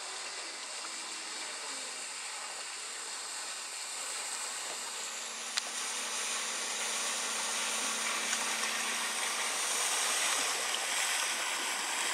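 Small open motorboat with an outboard engine approaching across calm water: a steady rush of water with a faint motor hum, slowly growing louder as it comes closer. A single tick about halfway through.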